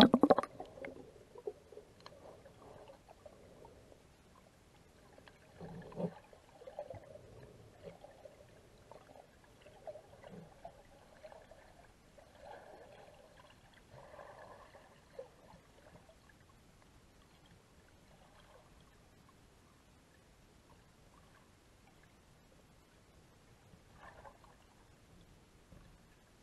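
Muffled underwater sound picked up through a waterproof action-camera housing: the tail of a splash as the camera dips under, then faint gurgling and water movement with a few soft knocks, going almost quiet after about sixteen seconds.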